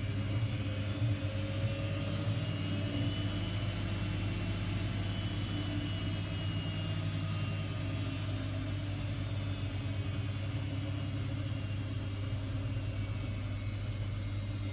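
AEG washing machine spinning at high speed: a steady low hum from the drum under a high motor whine that climbs slightly in pitch and then eases back down near the end.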